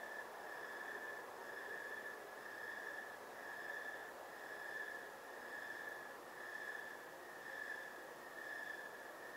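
A cricket chirping rhythmically, one long, high, clear chirp about once a second, over a faint steady hiss of outdoor night ambience.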